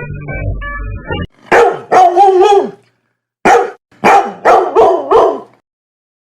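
A short electronic keyboard tune cuts off about a second in. A dog then barks loudly in two bursts, first two or three barks and then about five in quick succession.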